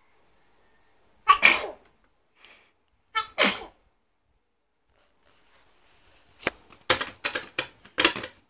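Baby sneezing twice, about two seconds apart, each a short sudden burst. A quick run of short sharp clicks follows near the end.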